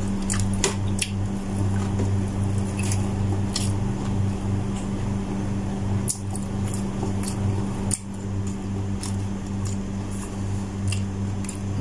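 Close-up eating sounds: chewing with scattered wet mouth clicks, over a steady low hum.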